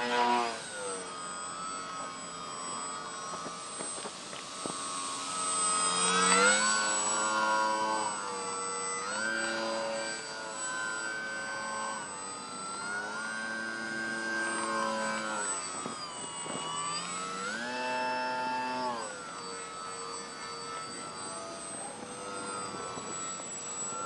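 Grayson Hobby GH2217-09 brushless motor spinning a 10x5 propeller on a foam-board RC plane in flight, whining. Its pitch holds and then slides up or down to a new level several times as the throttle is moved, loudest about six seconds in, with a thin steady high tone above it.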